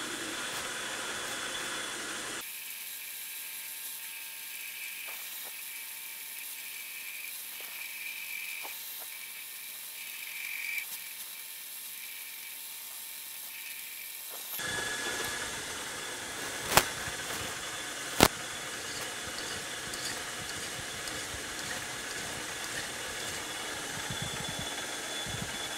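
Metal lathe running while a form tool cuts a rounded end on a spinning 3/8-inch W1 steel drill rod, then a hand file works the rod. The deep part of the noise drops out for about twelve seconds after the start, and two sharp clicks come in the second half.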